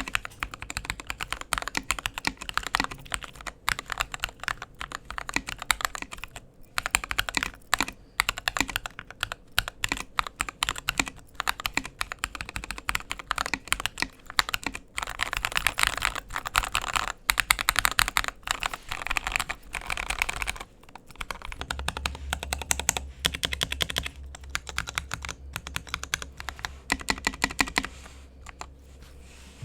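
Fast, continuous typing on an Akko Jelly 3087 mechanical keyboard with Gateron Pink linear switches: rapid keystroke clicks with a few brief pauses. A steady low hum comes in about two-thirds of the way through.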